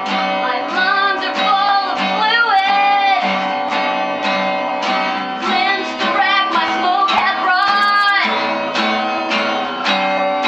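Acoustic guitar strummed in a steady rhythm, with a voice singing a melody over it in places.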